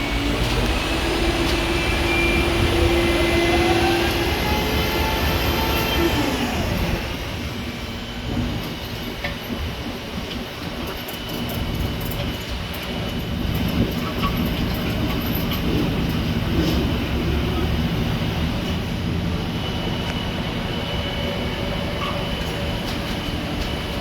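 A vehicle running, with steady low engine and road noise. In the first seven seconds a whine rises and then falls in pitch.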